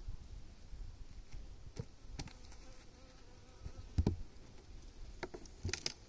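Honeybees buzzing around an opened hive, with several sharp knocks and cracks of a hive tool working at a propolis-sealed top. The loudest crack comes about four seconds in.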